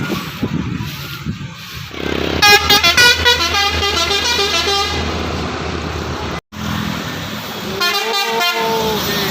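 A telolet musical horn on a heavy road vehicle plays a quick run of stepping notes starting about two and a half seconds in and lasting a couple of seconds. A shorter horn blast with bending notes follows near the end, over the steady drone of the engine, and the sound cuts out for an instant just past the middle.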